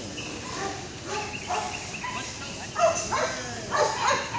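A dog barking several times, the loudest barks coming in the second half.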